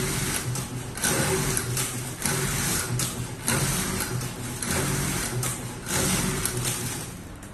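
Automatic roll-to-sheet shear cutting machine feeding bubble wrap through its slitting blades and cutting it into sheets: a repeating cycle of motor whir and shear cut, about one cycle every second and a bit. It quietens near the end.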